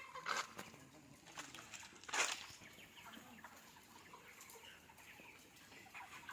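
A flock of chicks peeping faintly, with two brief louder sounds about a third of a second and about two seconds in.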